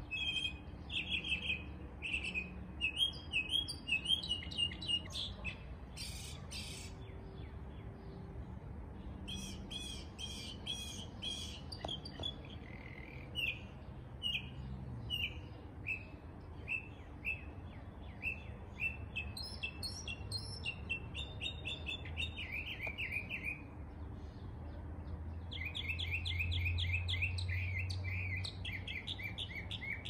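Small songbirds chirping in quick series of short repeated calls, over a low background rumble that swells near the end.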